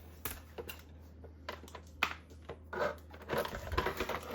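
Small clicks and rustling as parts of a model building kit are handled on a workbench, with a longer rustle about three seconds in, over a steady low hum.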